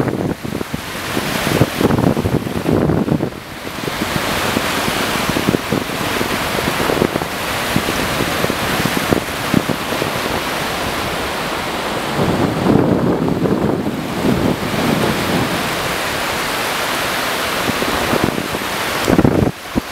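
Small sea waves breaking and washing up a flat sandy beach, with wind buffeting the microphone in gusts.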